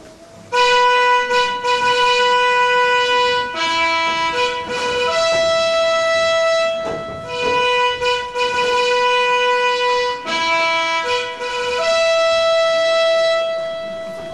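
A slow solo instrumental melody of long held notes, each sustained for one to three seconds, steady in pitch.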